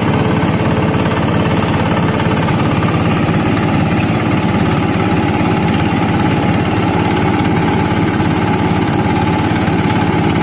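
Livestock-feed grinding machine running steadily with a loud, fast, even rattle, grinding rice husk mixed with bread.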